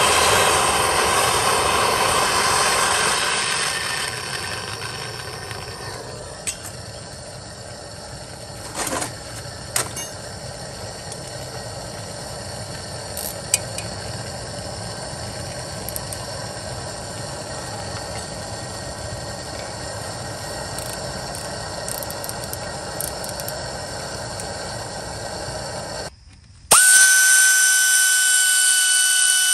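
Handheld MAP gas torch running with a loud rushing hiss as it heats a rusted rotor retaining screw, then a quieter steady hiss with a few light metal clicks as the screw is worked with a hand tool. Near the end a sudden loud, steady pitched whine cuts in.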